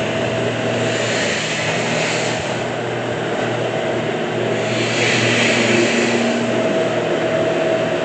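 Milking pipeline's automatic wash system running: a steady mechanical hum and drone as wash water is pumped from the sink through the hoses, milker units and pipeline.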